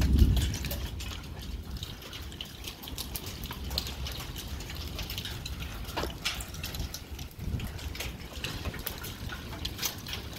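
Pea- to quarter-size hail falling with rain, heard as a steady hiss broken by many sharp, scattered ticks of hailstones striking. A low rumble of wind on the microphone is strongest in the first moment.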